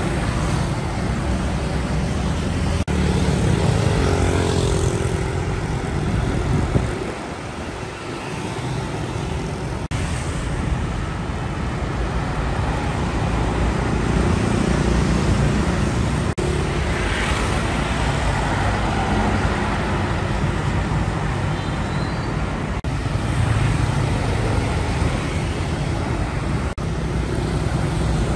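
Busy street traffic: box trucks and motor scooters passing close by, engines running and tyres on the road. The sound changes abruptly several times where short clips are joined.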